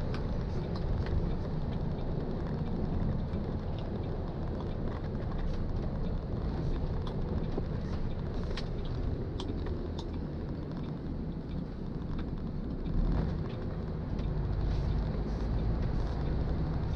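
Cab interior of a MAN tractor-trailer truck on the move: steady engine and road rumble, with a few faint clicks over it. The deep engine drone grows stronger about thirteen seconds in.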